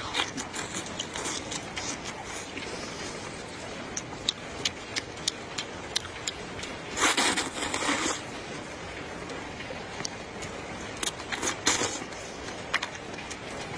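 A person eating spicy rice noodles (luosifen): two loud slurps of noodles, one about seven seconds in lasting about a second and a shorter one near the end, among many short clicks of chewing.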